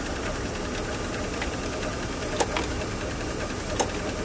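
BMW E36's engine idling steadily, with a few light clicks.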